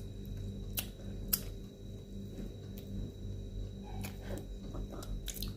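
Cooked shrimp shell being peeled off by hand, cracking with scattered sharp clicks: the loudest about a second and a half in, and a cluster near the end.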